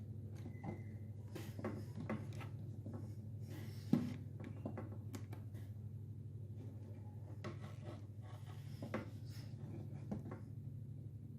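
Scattered light clicks, taps and rubbing of small objects being handled, with one sharper knock about four seconds in, over a steady low hum.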